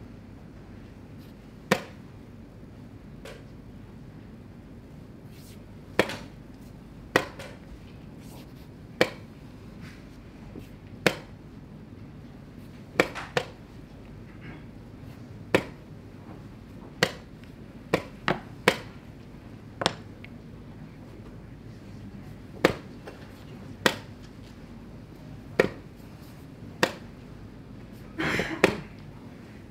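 Wooden chess pieces set down on the board and chess clock buttons pressed in a fast blitz game: sharp single clicks every second or two, sometimes in quick pairs, with a longer, noisier knock near the end.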